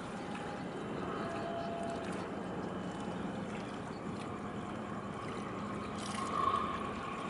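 Harbour waterside ambience: water lapping under a steady hum of distant ship and tug engines. A short, louder tone rises briefly about six seconds in.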